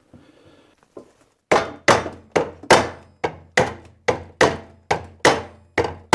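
Hammer blows, about two a second from about a second and a half in, each ringing briefly. They are struck to free a fan blade seized onto the motor shaft of a mini split heat pump's fan.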